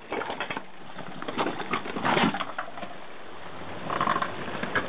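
Stones crunching and knocking under the tyres of a Mitsubishi Pajero IV as it crawls over a rocky creek bed, in irregular clatters with a louder burst about two seconds in and again near the end.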